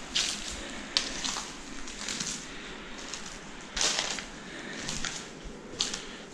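Footsteps crunching and rustling through shredded paper and rubble on the floor, in uneven steps, with a louder crunch about four seconds in.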